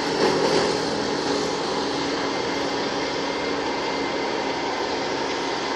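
Compact farm tractor's engine running steadily, its lower drone fading in the first second as the tractor moves away, under a steady noisy hiss.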